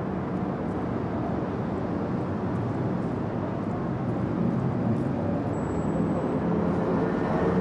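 Steady outdoor traffic noise, mostly low in pitch, getting a little louder about halfway through.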